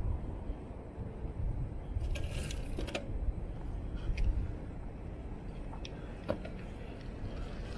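Bicycle being ridden: a steady low rumble of wind and road noise, with a few light metallic clinks and jingles, a small cluster about two to three seconds in and single ones later.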